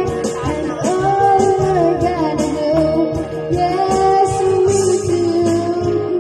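Song playing: a singer holding long, gliding notes over a steady beat.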